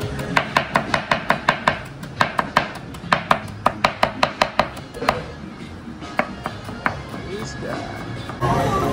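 Knife chopping on a cutting board in quick, even strokes, about five a second, thinning to a few scattered strokes after about five seconds. Music comes in near the end.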